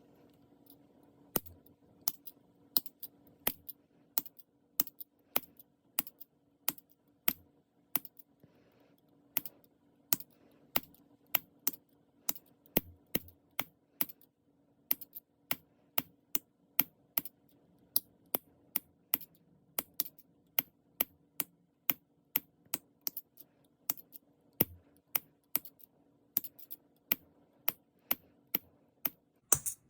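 Light, sharp taps of a small hammer on a metal fitting, about two a second in an uneven rhythm with a few short pauses, over a faint steady hum.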